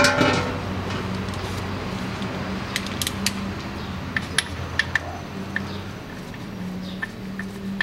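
A metal drain basin rings briefly as it is set down under the rear differential. After that come small, irregular metallic clicks as the differential's drain plug is turned out by hand, over a steady low hum.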